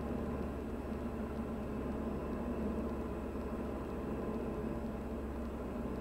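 Steady drone of a Diamond DA40's engine and propeller at approach power on final, heard from inside the cockpit.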